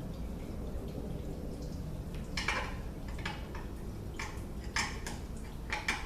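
A hand tool clinking and scraping against the steel parts of a Mercedes 722.6 automatic transmission's clutch pack: several sharp metallic clinks, irregularly spaced, starting about two seconds in.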